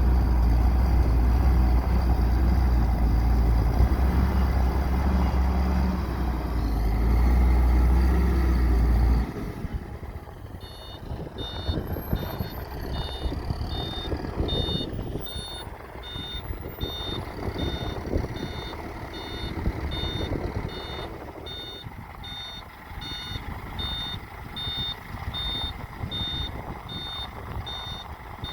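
Caterpillar 950E wheel loader's diesel engine running loud and deep, then dropping off suddenly about nine seconds in. The back-up alarm then beeps steadily, about one and a half beeps a second, over the quieter engine as the loader reverses.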